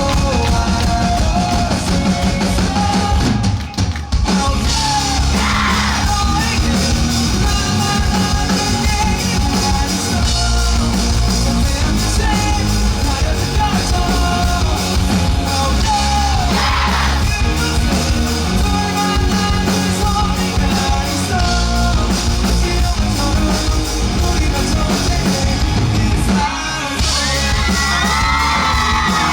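Live rock band playing, with drum kit and guitars under a sung and shouted lead vocal. The music drops out briefly about four seconds in.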